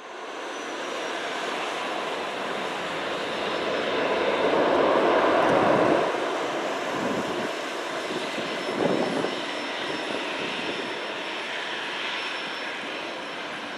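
Jet engines of an Airbus A321-200 at takeoff power: a continuous rushing engine noise that swells to its loudest about four to six seconds in as the jet goes by, then eases off and holds steady.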